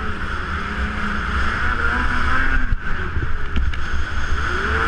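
Snowmobile engine running steadily as the sled rides through powder, with wind buffeting the camera's microphone.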